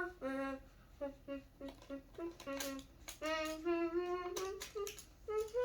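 A child humming a wordless tune in short and held notes, higher notes near the end.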